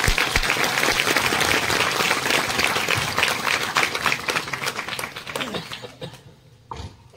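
A congregation applauding: many hands clapping together in a dense round that thins out and dies away about six seconds in.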